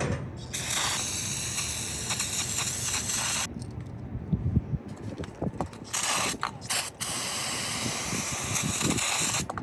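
Aerosol can of brake cleaner spraying, a hissing jet in two long bursts with a pause between, washing out a compressor's oil safety fitting. A few low knocks of handling fall in the pause.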